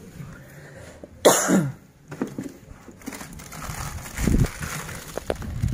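A man coughs once, sharply, about a second in. After that come rustling and handling noises from the unboxing, with a dull thump about four seconds in.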